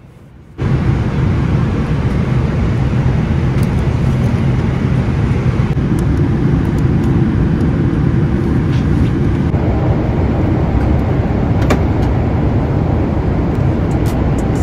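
Airliner cabin noise: the steady roar of jet engines and rushing air heard from inside the cabin, starting abruptly about half a second in.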